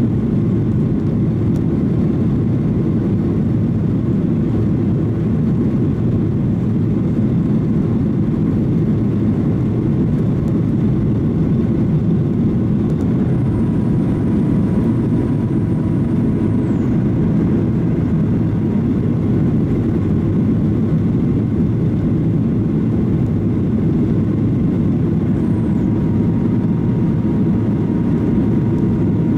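Steady cabin rumble of a Boeing 737-800 airliner's engines and air noise, heard from inside the cabin, loud and even throughout.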